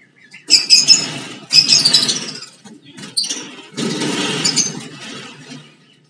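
Lovebirds squawking with sharp shrill calls while one is caught in a cloth bag inside a wire cage, mixed with the rustle and flutter of wings and cloth. The noise comes in loud bursts: two in the first two seconds, a short one a little after three seconds, and a longer one about four seconds in.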